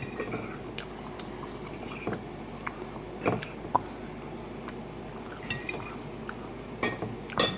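Cutlery clinking and scraping against a dish while eating, in scattered separate clinks with the loudest ones near the middle and just before the end.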